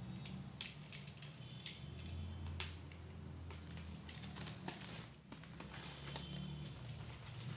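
Plastic shrink wrap being torn and crinkled off a cardboard box: irregular sharp crackles and rustles, the loudest about half a second in and again after about two and a half seconds, over a low steady hum.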